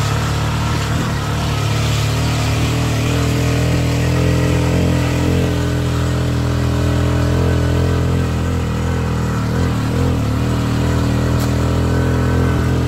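Motor tricycle's engine running at a steady pitch as it drives along a gravel road.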